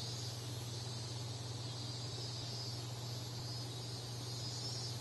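Steady, high-pitched insect chorus with a low steady hum underneath, used as ambience.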